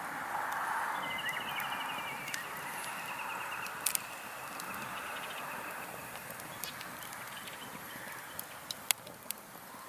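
Wood campfire crackling, with scattered sharp pops over a steady hiss. About a second in, a high, rapidly pulsing trill starts and lasts about three seconds.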